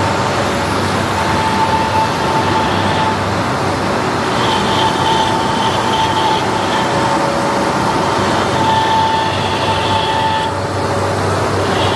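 Metal lathe running while a cutting tool turns a metal ring: a steady machine drone with a low hum, and a whine that comes in for about two seconds at a time, three times over.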